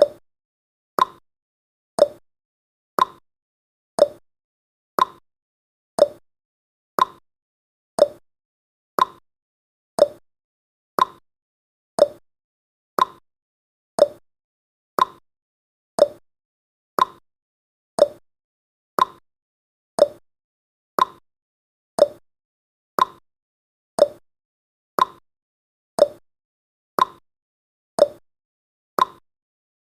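Countdown timer's clock-tick sound effect: one short, sharp tick a second, each dying away quickly, in a steady even rhythm.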